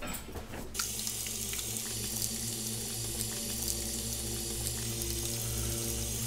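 Water from a bathroom sink's waterfall-spout faucet running steadily into the basin, starting about a second in, with light splashing as hands are washed under the stream.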